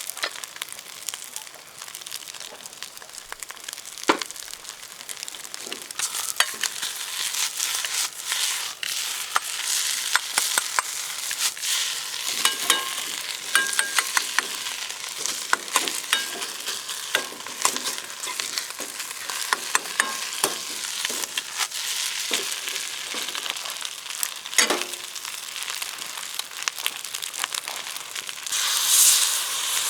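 Fried rice sizzling in a Uniflame camp wok over a campfire, with frequent clicks and scrapes of a spatula against the wok as it is stirred. Near the end the sizzle swells into a louder hiss.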